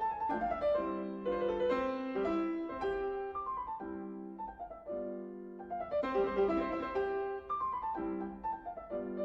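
Background piano music: the Allegro moderato first movement of a classical piano sonata, playing runs of notes at a moderate pace.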